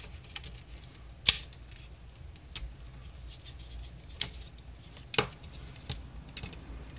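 Sharp plastic clicks and snaps as the tabs of a 2002–2006 MINI Cooper automatic climate control panel's front bezel are pried loose. The loudest click comes about a second in, with two more near four and five seconds and a few fainter ones between.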